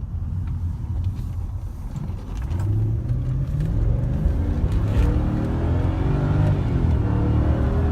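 Mercedes-Benz C43 AMG's 4.3-litre V8 accelerating hard, its pitch climbing from about two and a half seconds in, dipping once near six and a half seconds and climbing again.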